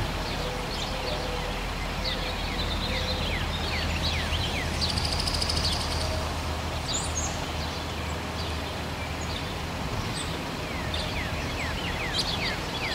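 Songbirds chirping, many short quick falling notes with a couple of brief buzzy trills, over a steady low background rumble.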